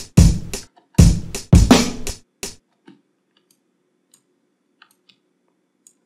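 Chopped live drum-loop samples playing back at about 83 BPM: kick, snare and cymbal hits, some cut off sharply, with clicks at the unfaded slice ends. The playback stops about two and a half seconds in, leaving a few faint clicks.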